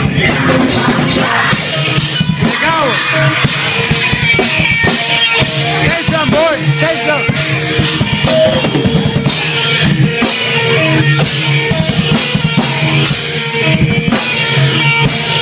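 A live band playing loudly, with the drum kit loudest: steady, rapid drum and cymbal hits over held notes.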